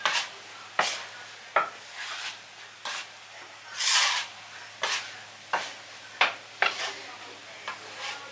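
Hands pressing and slapping a large crumbly mass of butter-and-flour dough on a floured table, with a sharp slap or thud roughly once a second and a longer rustling squish about four seconds in.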